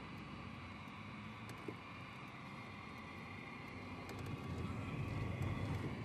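Radio communication ambience between voice transmissions: a steady hiss of static over a low rumble, with a few faint clicks, the rumble growing louder about four seconds in.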